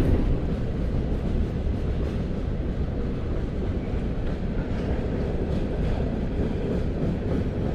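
An empty train running along the tracks with a steady rumble.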